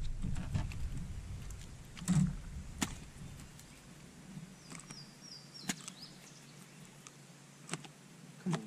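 Scattered sharp clicks and knocks from fishing tackle being handled on a bass boat's deck, over a low rumble that fades out after about three seconds.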